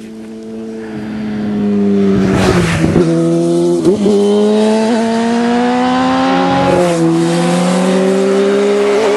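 Motorcycle engine running close by, getting louder over the first two seconds, its revs climbing slowly, with a drop in pitch about seven seconds in before it climbs again.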